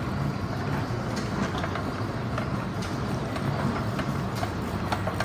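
Airport moving walkway running underfoot: a steady low hum and rumble with light scattered clicks.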